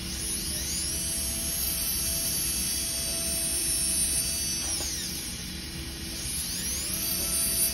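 Dental handpiece with a bur trimming a polycarbonate crown form. Its motor whines up to speed and runs steadily, winds down about five seconds in, then spins up again near the end.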